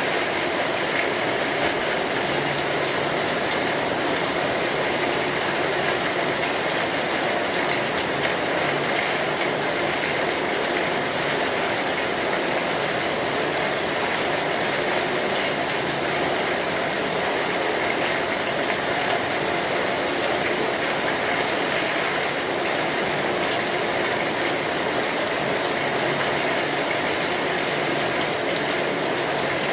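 Steady rain falling. A distant fog horn gives a faint low tone a few seconds in and again near the end.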